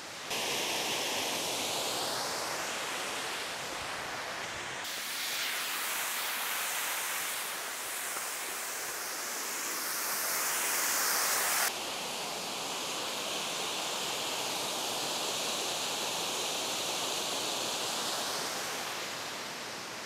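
Waterfall rushing: a steady noise of falling water with no pauses. It turns abruptly brighter and hissier about five seconds in, and duller again about twelve seconds in.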